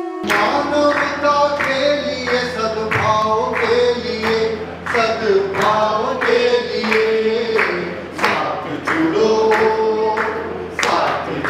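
A group of voices singing a song together in unison, over a steady regular beat.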